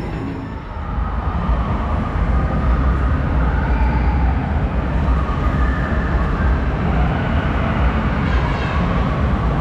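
Loud, steady rumbling din of an indoor amusement arcade hall, the mixed noise of many running game machines in a large room.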